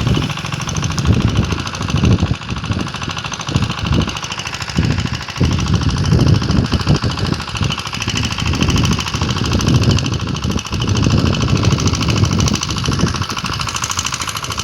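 Concrete boom pump's diesel engine running with a fast, steady rattle, loud throughout, with uneven low rumbling surges.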